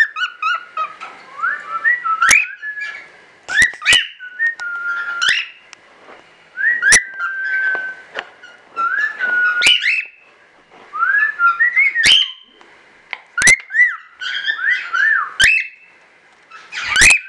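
Male cockatiel whistling its courtship song: phrases of warbled whistles that glide up and down, broken by sharp clicks, with short pauses between phrases.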